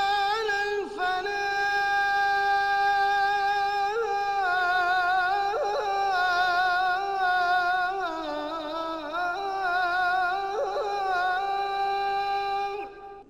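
A single unaccompanied voice chanting one long, ornamented phrase, with held notes that waver in trills. The pitch sinks for a couple of seconds in the middle, then rises again, and the voice stops just before the end.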